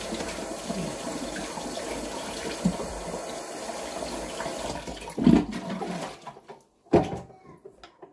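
Kitchen tap running as tomatoes are rinsed under it. The water stops about five seconds in, and a few knocks and handling sounds follow.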